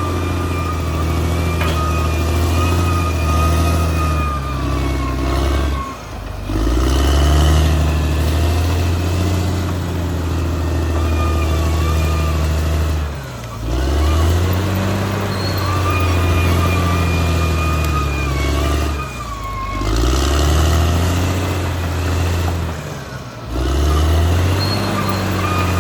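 Caterpillar D6R XL bulldozer's diesel engine running steadily under work, with a high whine over it; the engine note dips and recovers four times.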